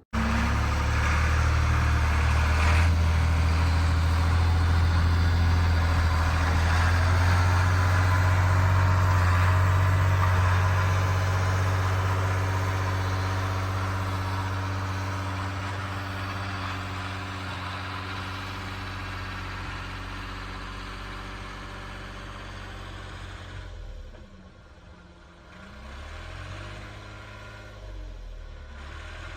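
Tractor engine running steadily, loudest for the first ten seconds and then slowly fading, with a brief dip and change in pitch near the end.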